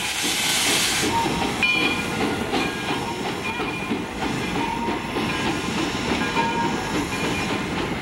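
Steam locomotive chuffing steadily, with a burst of hiss in the first second.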